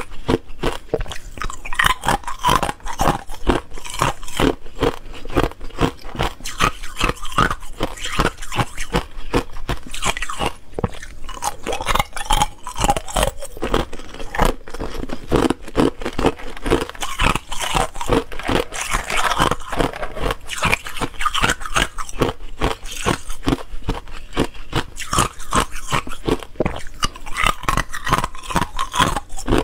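Clear ice cubes being bitten and chewed: a dense, continuous run of sharp crunching cracks.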